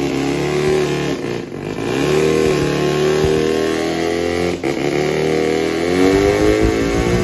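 Turbocharged engine of a converted microvan running under load on a chassis dyno. The revs rise, sag briefly about a second in, then hold and climb steadily again near the end. This is a pull made after the fuel mixture was leaned out from running very rich.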